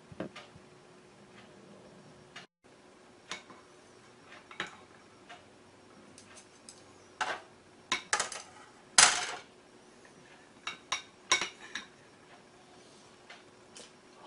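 Porcelain soup spoon clinking and scraping against a ceramic bowl of beef curry stew. Scattered light clicks bunch into a louder run a little past the middle.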